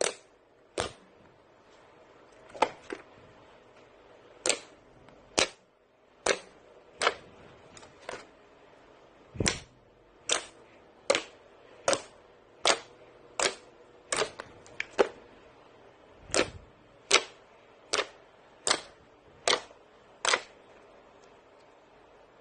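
Snow-like slime being squeezed and pressed by hand, giving sharp popping clicks at an uneven pace of about one a second.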